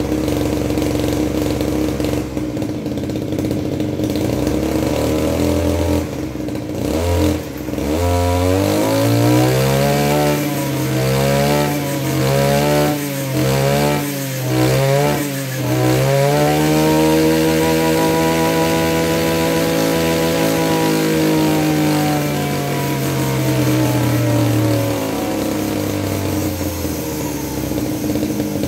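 Maruyama MBS328 backpack brush cutter's 32.8 cc two-stroke engine idling, then revved: about six quick throttle blips, then held at high revs for several seconds before dropping back to idle near the end.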